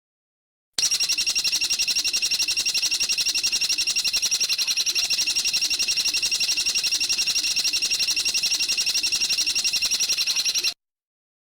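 A songbird's rapid, machine-even trill, high-pitched and sustained for about ten seconds, starting about a second in and cutting off abruptly: an edited song clip used to train cage birds.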